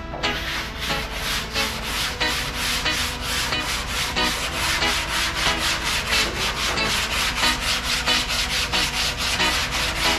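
Hand block sanding of primed truck metal with 180-grit sandpaper: quick back-and-forth rasping strokes, about four a second, scuffing the primer ready for bedliner.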